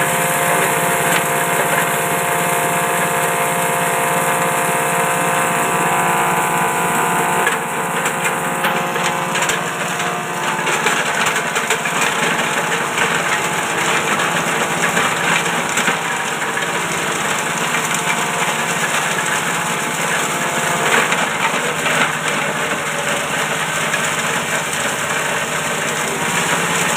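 Small petrol engine running a multifunction chopper (JG 125 forage chopper) at working speed while plant material is fed through and shredded. About a third of the way in, the steady engine drone turns rougher and more crackly as the cutters bite into the feed.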